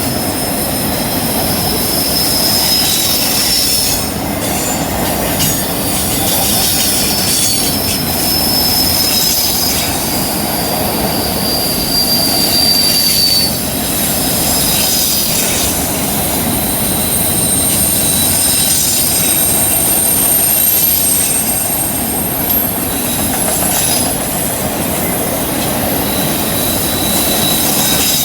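Train cars rolling through a curve, steel wheels squealing against the rail in long, high-pitched tones that come and go over a steady rumble of wheels on track.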